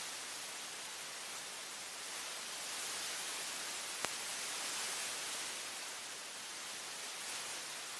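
Steady hiss of electronic noise with no speech, broken by a single sharp click about four seconds in.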